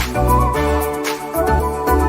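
Background pop music with a steady beat: sustained bass and keyboard notes and a drum hit about every half second, with no vocals.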